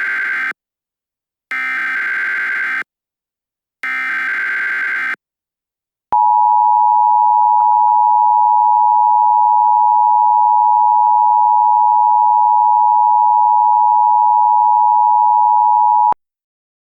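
Emergency Alert System broadcast signal: three short bursts of buzzing digital header data, then from about six seconds in the steady two-tone attention signal, a high dual tone held for about ten seconds that cuts off suddenly.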